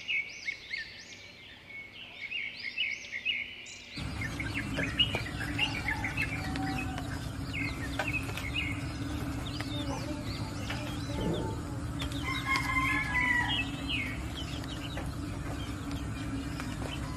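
Backyard chickens: a rooster crows about two-thirds of the way through, among clucking and the chirps of small birds. For the first few seconds a small bird gives quick repeated high chirps, then the background changes abruptly to a louder, steady outdoor hum.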